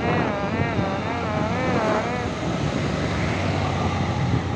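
Bus 'telolet' musical horn playing a warbling tune of several tones for about two seconds, then stopping, over the low steady noise of a vehicle engine that runs on after it.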